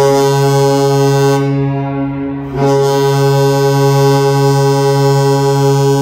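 NHL arena goal horn blowing a loud, steady, low horn tone. It breaks off briefly about two and a half seconds in, then sounds again. It is the post-game horn celebrating a home win.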